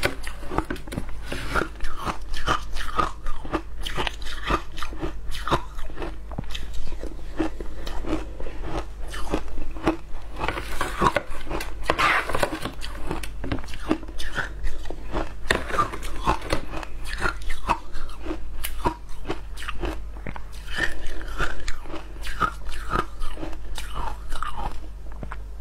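A person crunching and chewing mouthfuls of shaved ice close to a clip-on mic, a dense irregular run of crunches with no pause.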